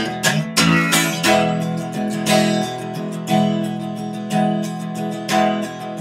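Acoustic guitar strummed in an instrumental break between sung lines of a song, a few quick strokes in the first second and then about one strum a second.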